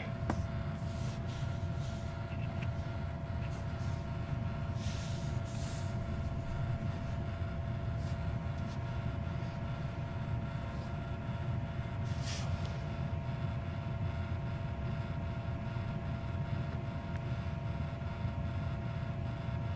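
A small electric motor running with a steady hum and a constant whine. Soft rustles come twice, about five and twelve seconds in.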